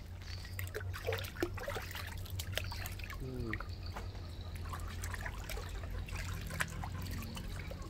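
Water trickling and dripping with small scattered splashes as a baby monkey is washed by hand in a shallow inflatable paddling pool. A short falling call is heard about three seconds in.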